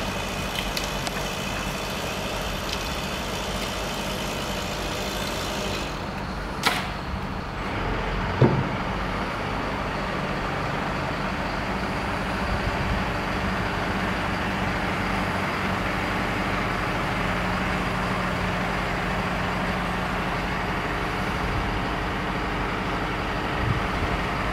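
Engine of a truck-mounted aerial lift running steadily, powering the boom, with two short sharp knocks about seven and eight and a half seconds in.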